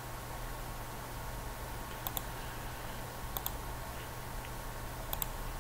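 Three sharp clicks at a computer, each a quick pair of ticks, spaced a second or two apart, over a steady low hum.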